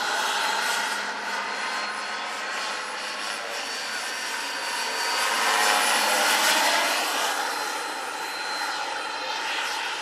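Turbine engine of a large radio-controlled Hughes 500E scale model helicopter in flight, a steady high whine over the rush of the rotor. It grows louder about halfway through as the helicopter passes closer, then eases off as it moves away.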